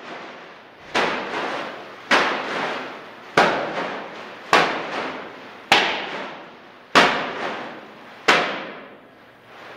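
A heavy trash bag of clay slammed again and again onto a bare floor: seven sharp slaps, about one every 1.2 seconds, each dying away over half a second or so.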